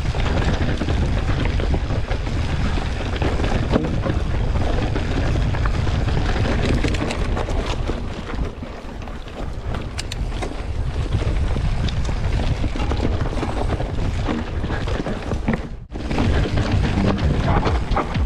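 Wind buffeting the microphone with scattered rattling clicks from a mountain bike riding a rough trail. It cuts out briefly near the end.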